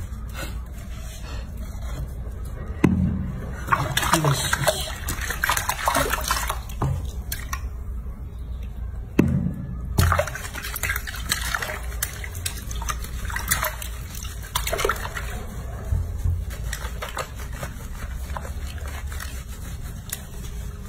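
Bathwater sloshing and splashing in a sink as hands lather and rinse a baby monkey, in irregular bursts, busiest in the first half.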